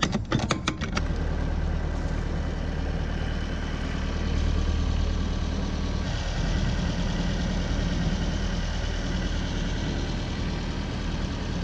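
Sailboat's inboard engine running steadily under way: a low, even hum beneath a steady hiss. A few sharp clicks in the first second.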